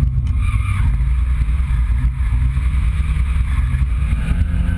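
Nissan 200SX drift car's engine running hard, heard from inside the cabin, its pitch stepping up and down as the throttle is worked.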